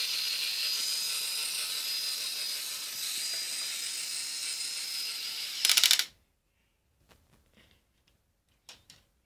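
Lego Technic truck's electric motor running its plastic gearing with a steady high whine, then a short, loud burst of rapid clicking about five and a half seconds in, after which the motor stops and only a few faint clicks follow.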